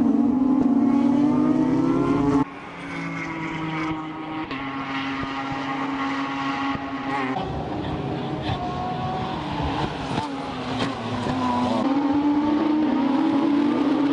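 Race car engines at high revs as a pack of touring cars passes, their pitch rising under acceleration. About two and a half seconds in the sound changes abruptly to another stretch of engine noise that rises again near the end.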